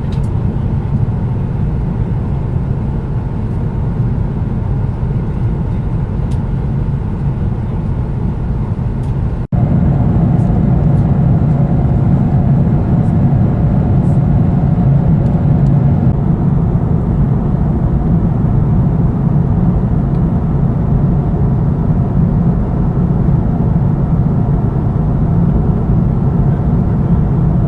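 Steady cabin noise of a Boeing 777-200ER airliner in cruise, the hum of airflow and engines heard from an economy seat. A brief dropout about nine and a half seconds in, after which it is slightly louder.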